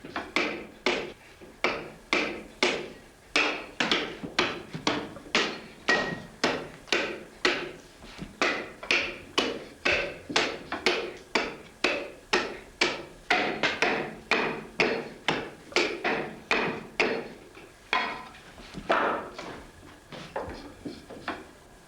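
A steady run of hand-tool blows on wood, about two a second, as the wooden sideboard of a saddle frame is carved into shape. The blows soften and come more unevenly near the end.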